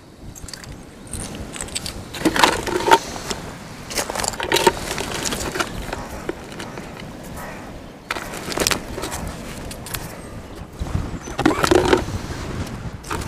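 Pebbles and stones crunching and clattering underfoot and under hand on a stony shore, in several short irregular bursts.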